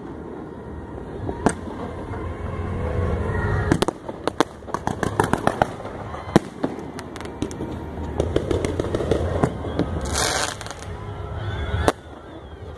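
Aerial fireworks going off: a sharp bang about a second and a half in, then a quick run of rapid pops and crackles from about four to seven seconds, with more scattered bangs after it.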